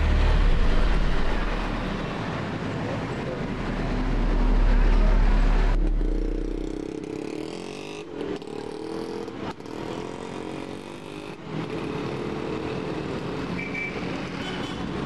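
Motorcycle tricycle engine running and pulling away into street traffic, loudest in the first half. In the second half it gives way to a lighter, steady hum of passing traffic, including a jeepney.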